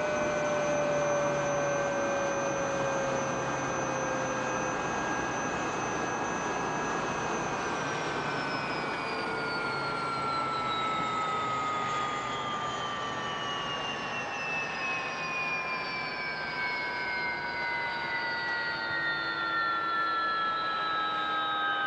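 Jet engine sound: a steady rushing noise with several high whining tones layered over it. About eight seconds in, the whines begin sliding slowly and evenly down in pitch.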